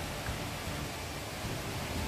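Steady rush of a rocky stream's water running over stones, with a low, uneven rumble underneath.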